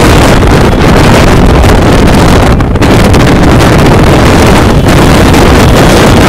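Heavy wind noise on the microphone of a moving motorcycle, steady and loud, with the bike's engine and road noise underneath.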